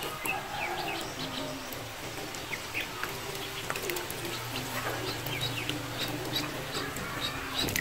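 Ducklings peeping over and over in short, high chirps, with light splashing and clicks as they paddle in shallow water.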